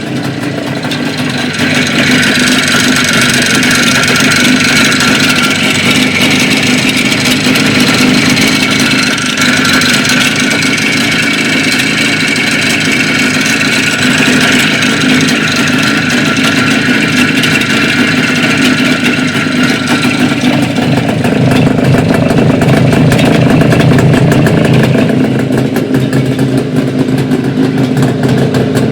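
IZh Jupiter-5 motorcycle's two-stroke twin-cylinder engine running steadily, with the engine knock that the owner is showing. It picks up about two seconds in and runs a little louder for a few seconds past the middle.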